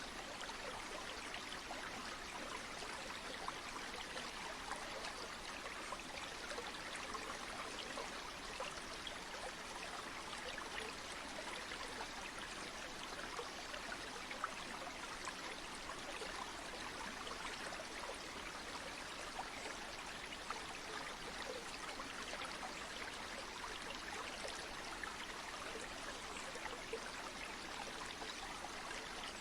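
River water flowing, a steady, even rush with no pauses or changes.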